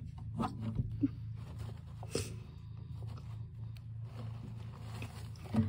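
Soft rustling and crunching of fluffy paper cage bedding, with scattered light clicks, over a steady low hum.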